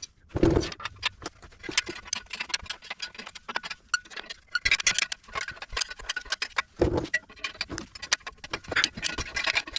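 Hand ratchet clicking in quick runs while bolts on the exhaust pipe are loosened, with a couple of dull knocks, about half a second in and near seven seconds.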